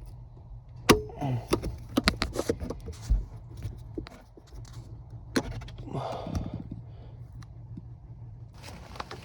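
Sharp clicks, knocks and light rattling from parts and tools being handled. They come in a quick cluster over the first few seconds, with a single click later and a brief rustle, over a steady low hum.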